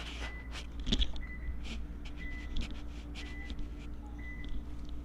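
A short high electronic beep repeating about once a second over a steady low hum, with scattered faint pops.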